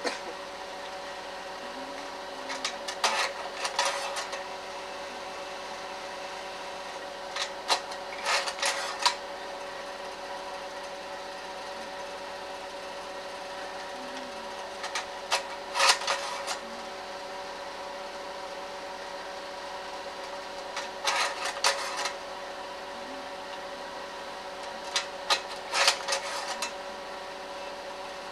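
Slide projector running: a steady fan and motor hum, with a short clatter of two or three clacks from the slide-change mechanism five times, about every five or six seconds, as the slides advance.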